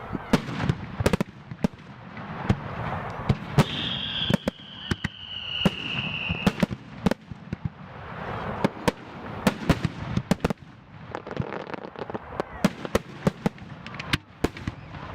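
Aerial firework shells bursting in a professional display, with many sharp bangs and crackles in quick succession. Near the middle, a high whistle falls slightly in pitch for about three seconds.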